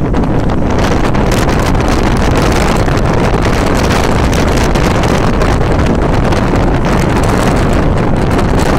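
Strong gusty wind buffeting the microphone: loud, steady wind noise, heaviest in a deep rumble.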